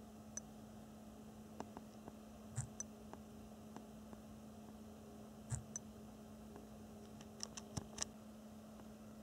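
Steady low electrical hum with scattered light clicks and taps from a smartphone being handled and its screen tapped, the louder taps about two and a half, five and a half and eight seconds in.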